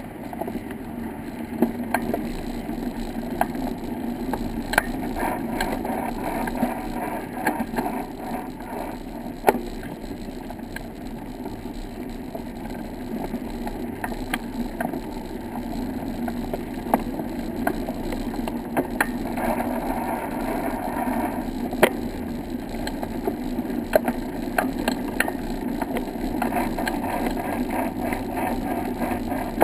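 Tyres rolling steadily along a sandy and paved path, a continuous rumble with irregular rattling clicks and knocks from the vehicle carrying the camera.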